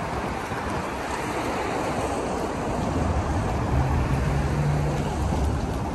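City street traffic noise, a steady wash of passing vehicles. A low engine hum swells about halfway through, as a vehicle passes close by.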